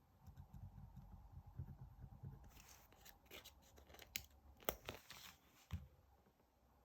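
Faint paper and sticker handling: soft rubbing and shuffling, then crackling, tearing-like sounds with sharp clicks around the middle, and a single dull knock near the end.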